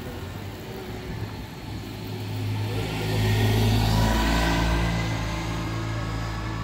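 A motor scooter riding past close by, its engine hum swelling to its loudest about three to four seconds in and dropping slightly in pitch as it goes by. Before it, a car pulling away fades off.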